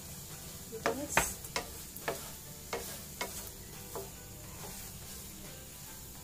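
A wooden spatula knocking and scraping against a nonstick frying pan as fried idli pieces are stirred and tossed, with several irregular clatters in the first four seconds, then only a faint steady sizzle.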